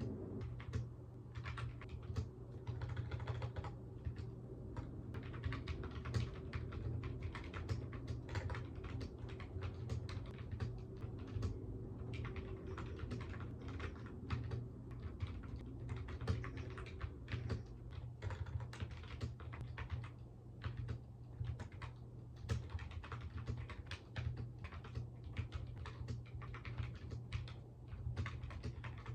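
Fast, irregular typing on a computer keyboard, key clicks coming in quick runs with short pauses, over a steady low hum.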